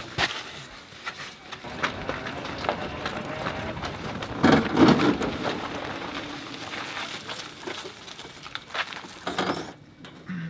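People push-starting a pickup truck by hand: scuffing footsteps and rolling tyres make a noisy rush with scattered knocks, loudest about four and a half seconds in.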